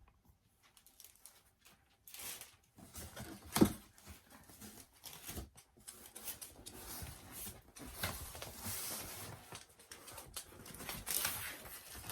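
Packaging being handled and opened: plastic and paper rustling, crinkling and tearing, with one sharp knock about three and a half seconds in.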